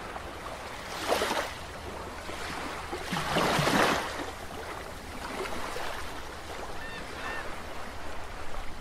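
Underwater sound effects: a steady watery rush with two louder whooshing swells, one about a second in and a stronger one around three and a half seconds, and a few short high blips near the end.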